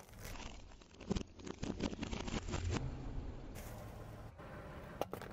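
A car tyre crushing a plastic jar of small blue beads on asphalt: a run of sharp cracks and clicks as the plastic breaks and the beads scatter, over the low steady hum of the car.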